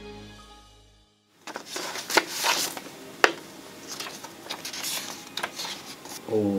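Background music fades out, and after a brief silence paper rustles and crackles as an envelope is opened and a folded letter is handled and unfolded, with a few sharper crinkles.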